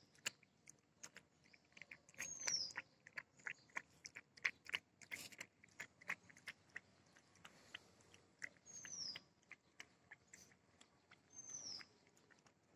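A puppy lapping milk from a plate: quick, irregular wet clicks of tongue and mouth. A bird gives a short, falling whistle three times in the background.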